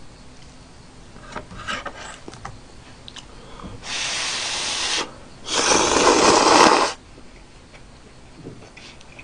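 A person slurping instant udon noodles: two long slurps, the second louder and cut off sharply about seven seconds in, after a few soft clicks.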